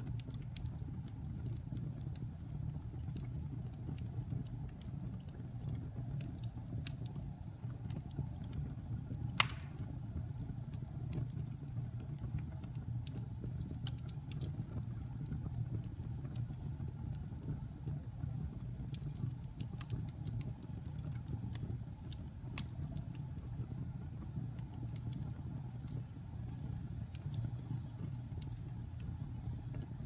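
Wood fire burning in a fireplace: a steady low rumble of flames with scattered small crackles, and one sharper pop about nine seconds in.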